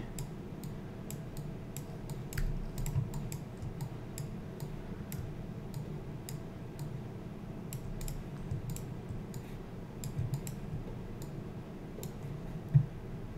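Irregular clicking of a computer keyboard and mouse, several clicks a second, over a steady low hum. One louder low thump near the end.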